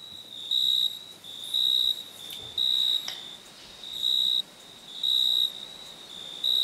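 High-pitched electronic beeping, about one short beep a second, with a fainter, slightly lower tone sounding between the beeps.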